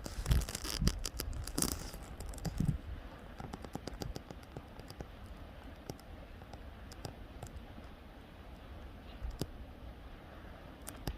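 Lava flow crackling and clinking as its cooling crust breaks and tumbles, over a faint rushing noise like a river. The clicks are dense for the first three seconds or so, then come sparser and scattered.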